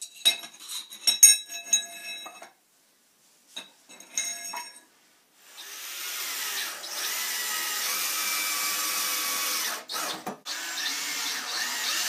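Metal angle brackets and screws clinking as they are handled, then a cordless drill driving screws through the brackets into a wooden frame. The drill runs steadily for about four seconds, stops briefly, then runs again.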